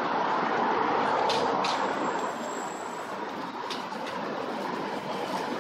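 City street ambience: a steady hum of passing traffic and pedestrians, with a few faint short clicks and a brief faint high whine.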